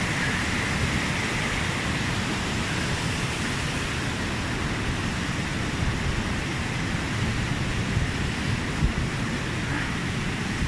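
Steady rush of a waterfall, an even hiss of falling water, with an uneven low rumble of wind on the microphone.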